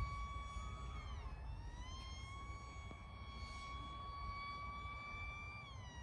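Electric motor of a small 3D-printed RC F-22 model jet whining steadily in flight. Its pitch dips about a second in, slowly climbs back, then falls again near the end. Wind rumbles on the microphone underneath.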